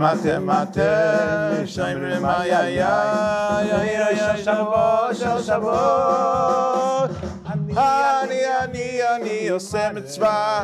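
A man singing a slow melody in long held notes with vibrato, over a soft electric keyboard accompaniment; the word "Shabbos" is sung near the end.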